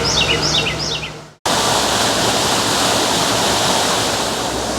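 A bird gives a quick run of short descending chirps, then the sound cuts out for an instant and a steady rush of falling water takes over.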